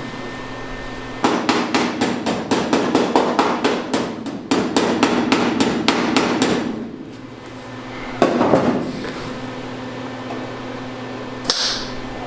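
Rapid, even hammer taps on thin sheet steel, about five a second for several seconds, as a new door-jamb patch panel is worked into place; a short burst of knocking follows and one more knock near the end, over a steady low hum.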